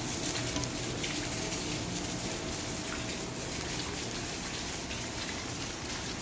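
Heavy rain falling steadily on wet tiled paving.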